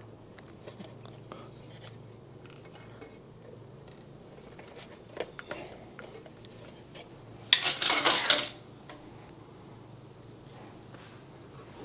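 Small metallic clicks and handling noises as a rubber fuel hose and its clamp are worked onto a motorcycle fuel petcock by hand, with a louder rustling clatter lasting about a second a little past the middle.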